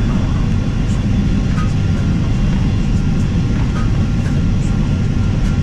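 Steady low rumble of cabin noise inside a Boeing 767-300ER airliner as it rolls along the ground at the airfield after landing.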